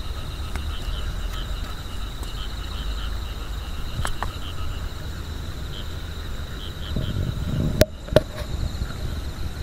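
Night insects, crickets, chirping in a steady, evenly pulsing chorus over a low rumble. Near the end come two sharp clicks about half a second apart.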